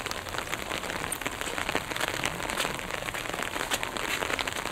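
Steady crackly patter: many small, irregular ticks over an even hiss.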